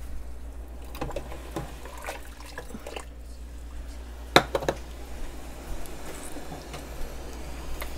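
Pot of water on the boil, bubbling and popping faintly over a steady low hum. One sharp clink comes about four seconds in.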